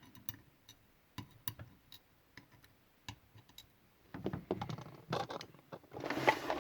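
Small metal lock pins and wafers being moved about on a work surface, giving scattered light clicks and small scrapes. The clicks get busier in the last couple of seconds, with one louder scrape near the end.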